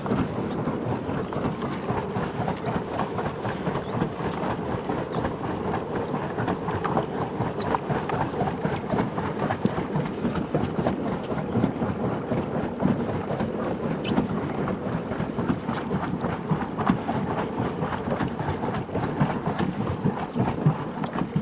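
Steady, fluttering rush of a paddle boat under way, water splashing and wind buffeting the microphone, with a few faint clicks.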